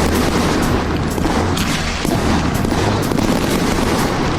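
Black Phantoms 330-shot firework cake firing, a rapid, irregular string of launches and bangs without a break.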